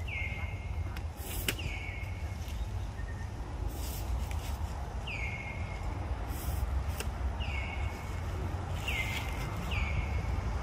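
Forest bird calling: short whistles that slide down and level off, about six times at uneven gaps of one to two seconds, over a steady low rumble with a few sharp clicks.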